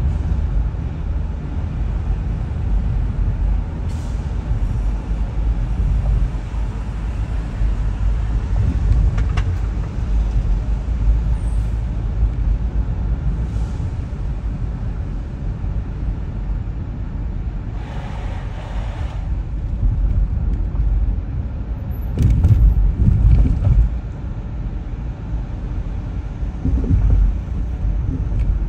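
Steady low rumble of a car driving on city streets. There is a brief hiss about two-thirds of the way in and a few heavier bumps shortly after.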